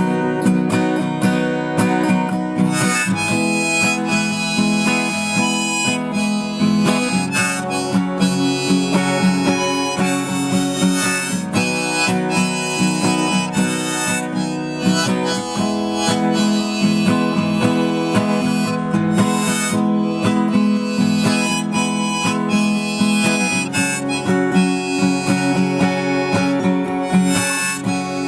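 Harmonica playing the melody over strummed acoustic guitar in an instrumental break of a folk song.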